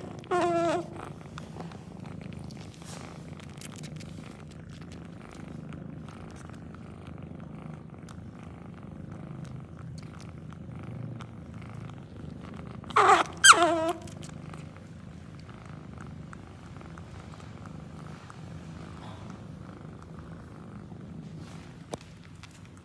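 Cat purring steadily while nursing her young. A short, high cry breaks in right at the start and twice more in quick succession about 13 seconds in.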